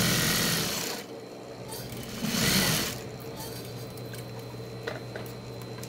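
Juki industrial sewing machine stitching in two short runs, one of about a second at the start and another of under a second near the middle, with the motor humming steadily in between.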